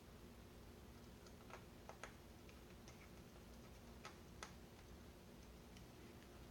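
Faint, scattered small clicks and ticks of a screwdriver and small screws being handled while the laptop screen's mounting screws are put back in, over a low steady hum.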